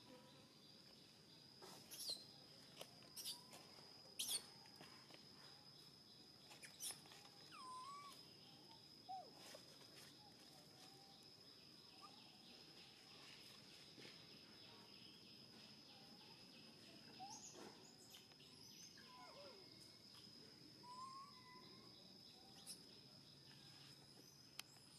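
Near silence with faint outdoor sounds: a steady high whine, a few sharp clicks in the first seven seconds, and several brief chirping calls that rise and fall in pitch.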